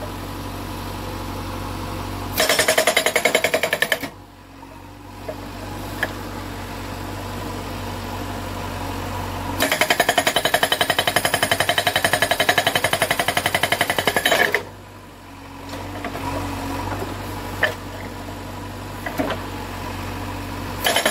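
Korean SH43HD hydraulic rock breaker on a JCB backhoe hammering its chisel into rock in rapid, even blows: a short burst about two seconds in, then a longer one of about five seconds from about ten seconds in. Between the bursts the backhoe's diesel engine runs steadily, with a few scattered knocks.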